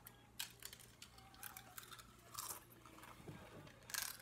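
Pringles potato chips being bitten and chewed: a few faint, sharp crunches, the loudest near the end.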